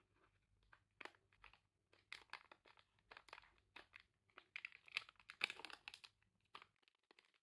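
A Fitbar snack bar's foil-lined plastic wrapper crinkles as it is handled and turned over, then crackles as it is torn open. The crackling is densest and loudest a little past the middle, then stops shortly before the end.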